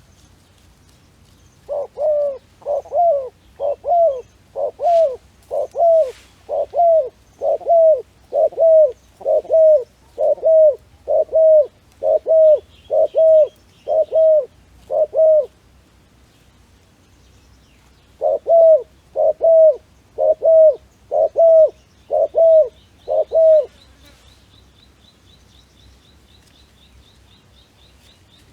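A dove cooing in runs of short, evenly spaced notes about one a second: some fifteen in a row, a pause of a few seconds, then six more.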